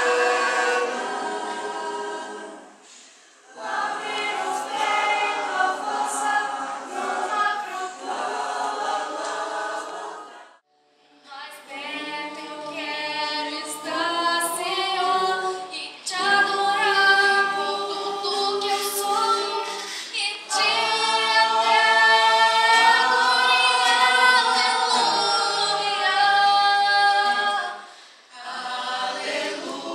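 Mixed choir of men's and women's voices singing in harmony, in long phrases. The singing breaks briefly a few times, with the longest pause about ten seconds in.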